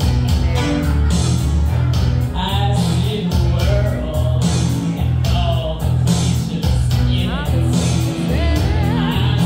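A song playing: a sung vocal over a pulsing bass line, the voice wavering with vibrato near the end.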